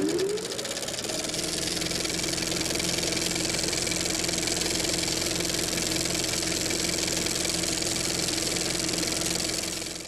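An engine revs up over the first second, then runs steadily at high speed with a fast, even pulse.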